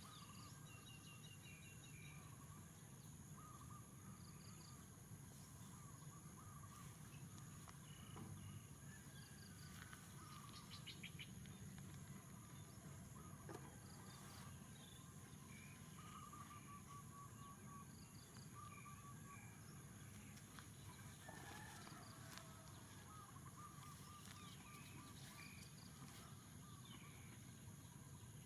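Near silence: faint outdoor ambience with scattered small bird chirps and short trills.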